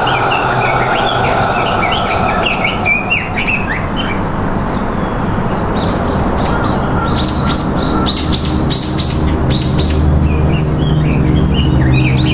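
Wild birds chirping, with a run of quick, repeated falling notes in the second half. A low steady hum comes in about two-thirds of the way through and gets louder toward the end.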